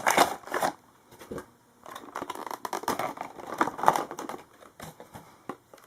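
Packaging being opened by hand: a model-aircraft box and its wrapping rustling and crinkling, in two spells with a short pause between.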